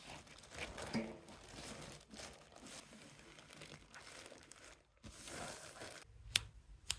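Plastic mailer bag crinkling and rustling as gloved hands handle and flatten it, with two sharp clicks near the end as scissors start on the bag.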